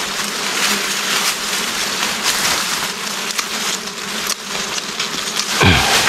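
Grass and dry leaves rustling and crackling as they are pushed aside by hand, with a faint steady insect buzz underneath. A brief falling swoosh comes near the end.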